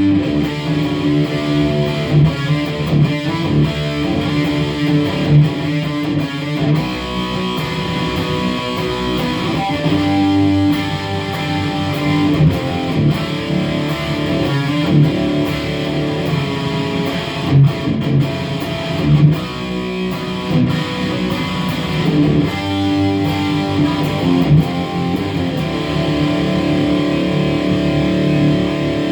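Electric guitar played through an Engl Fireball amplifier: a continuous passage of chords and single notes with frequent sharp accents.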